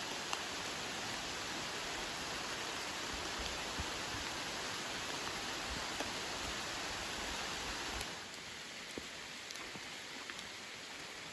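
Steady rain falling in the woods, an even hiss with a few separate drops ticking. It gets a little quieter about eight seconds in.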